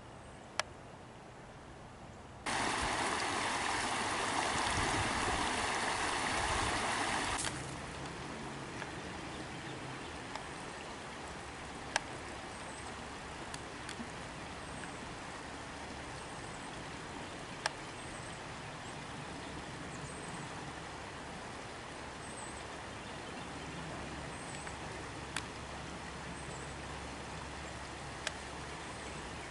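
Stream water rushing loudly for about five seconds, starting and stopping suddenly, set between quieter steady outdoor background with a few sharp clicks and faint high chirps.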